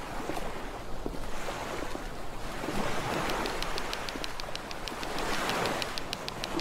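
Waves washing on a shore, a steady rush that swells and falls every couple of seconds. From about three seconds in, faint regular high ticks come about three a second.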